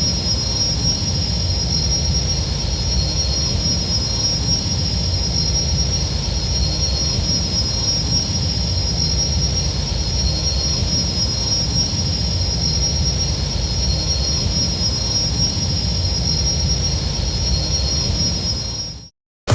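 Z-95 Headhunter starfighter exterior engine sound effect, looping: a steady low rumble with a steady high whine over it. It fades out and cuts off near the end.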